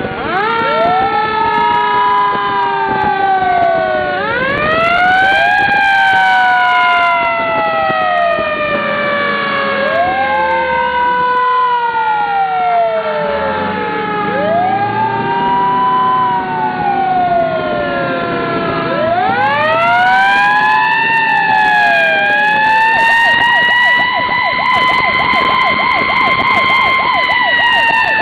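Several emergency-vehicle sirens sounding at once and overlapping, each winding up quickly and then sliding slowly down in pitch, over and over. Late on, one holds a high steady tone while a fast electronic yelp warbles underneath.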